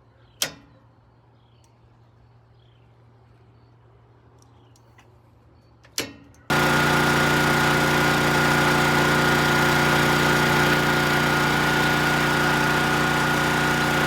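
Generator engine running steadily, a hum with a steady high tone over it, cutting in abruptly about six and a half seconds in. Before it, two sharp knocks in a quiet room.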